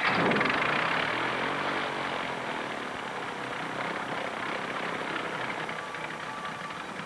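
Light aircraft piston engine of a Piper PA-28 Cherokee catching with a loud burst, then running steadily with its propeller turning and slowly quietening as it settles.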